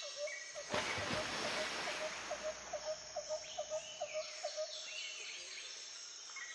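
A bird calling a run of about a dozen short, evenly repeated notes, a few a second, with fainter higher chirps after it over a steady high hiss. A short rush of noise comes about a second in.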